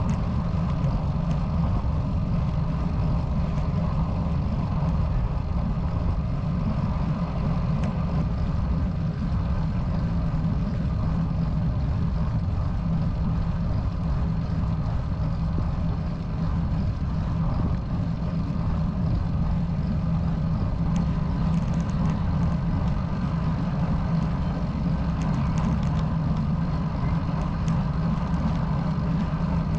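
Steady, low wind rumble on a handlebar-mounted camera's microphone while riding a road bike on asphalt.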